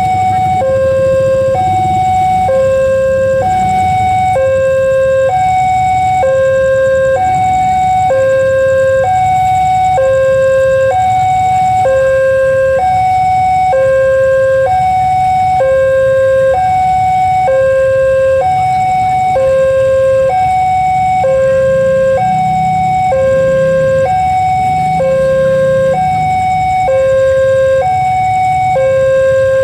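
Railway level-crossing warning alarm sounding a steady electronic two-tone, its high and low notes alternating in an even rhythm, over a low rumble.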